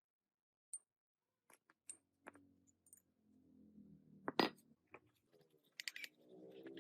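Small metal parts clinking and tapping against one another in scattered, separate clicks, with one louder knock about four and a half seconds in.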